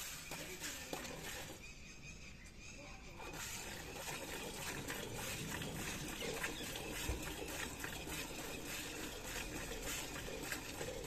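Milk squirting into a pail in quick repeated streams as a buffalo is milked by hand.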